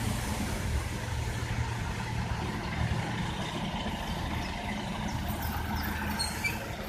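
Class 142 Pacer diesel multiple unit pulling into the platform, its diesel engine running with a steady low hum.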